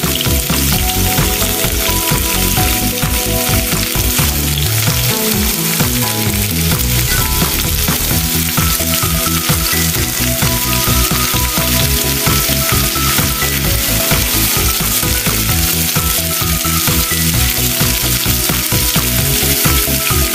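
Minced garlic sizzling steadily in hot oil in a wok, with a spatula stirring it around the pan.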